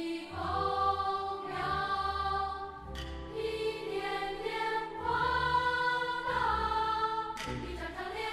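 Children's choir singing in Mandarin with a symphony orchestra, in three held phrases over low orchestral notes.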